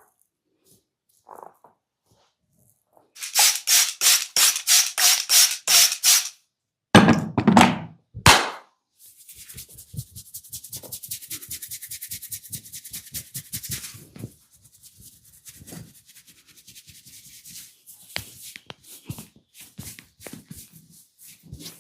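Head massage sounds: a run of quick scratching strokes on the scalp, about four a second, then two heavy thuds, then a long stretch of very rapid fingernail scratching through the hair, fading into scattered light rubs and clicks.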